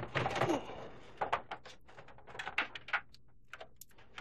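Handling noise from a laptop charger's cable and plug and objects on a desk: a loud clatter at the start, then a string of uneven clicks and knocks.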